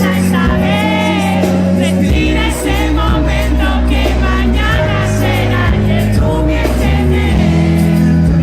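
Live pop song played loud through a PA at a sound check: a sung vocal line over a band with a sustained bass line.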